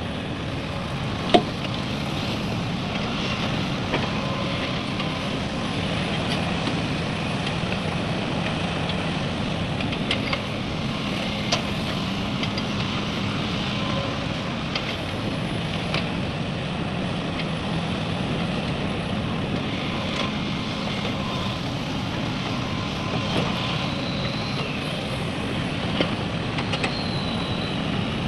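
Heavy diesel machinery running steadily, an excavator or dump truck at work, with a sharp knock about a second in and scattered metallic clicks.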